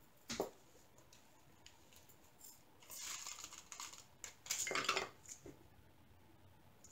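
Small plastic zip bags of diamond-painting drills and a small clear plastic drill container handled on a table: a light click just after the start, then crinkling rustles about three and four and a half seconds in, and another small click.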